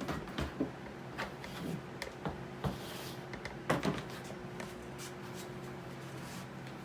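Knocks and clatter of a container being handled as a boa is put into it: several sharp knocks in the first four seconds, then only a steady low hum.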